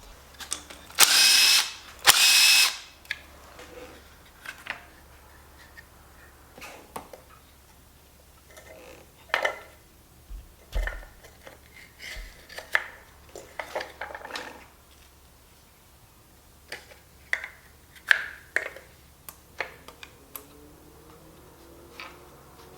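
A power tool run in two short bursts about a second in, spinning out fasteners on a 6.0 LS V8 engine being torn down, followed by scattered clinks and knocks of tools and metal engine parts being handled.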